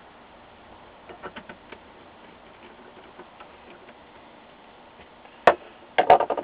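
Light clicks and ticks from handling the LCD monitor's panel and parts during reassembly, then one sharp click about five and a half seconds in and a short cluster of loud knocks near the end.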